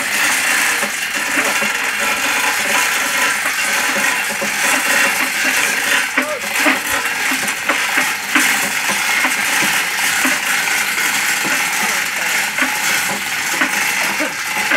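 Steel chain of a hand chain hoist clinking and rattling without a break while it is worked to lift a stack of speaker cabinets.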